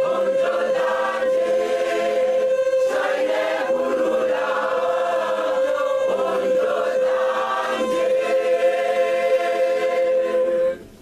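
A large choir singing, the voices moving above one note held steadily beneath them; the singing stops abruptly near the end.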